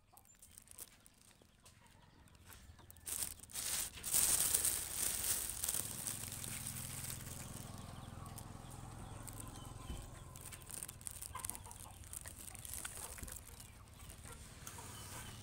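Chickens clucking in the background, over a steady hiss that sets in about three seconds in.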